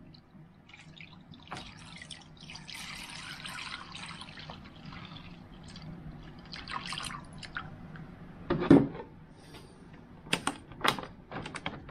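Rust remover poured from a plastic jug into a shallow plastic paint tray, liquid trickling and splashing into the pool. Toward the end a loud knock, then a run of sharp crackles.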